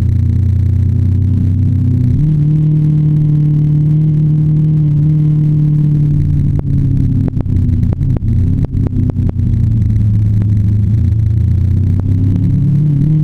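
Motorcycle engine running under way, heard from on board. Its pitch steps up about two seconds in, breaks into short dips around the middle, then falls and climbs again near the end.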